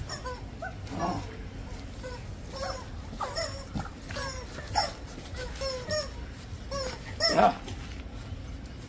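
Rubber screaming-chicken toys squeezed in short, repeated squawks, with a louder, longer squawk about seven seconds in.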